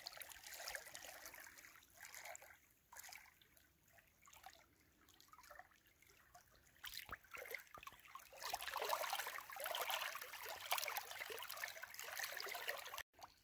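Small waves lapping and trickling over a pebble lakeshore, washing in and out unevenly. The lapping is soft at first and grows louder about halfway through.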